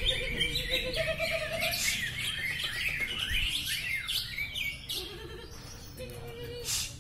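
Several caged green leafbirds (cucak ijo) singing at once: a dense, overlapping tangle of quick chirps and rising and falling whistles. It grows somewhat softer near the end.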